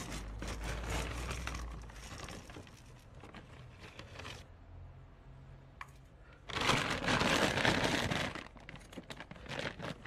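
A plastic scoop digging into a sack of wood pellets, the pellets rustling and clicking, then the plastic sack crinkling loudly for about two seconds as it is folded over, with scattered clicks near the end.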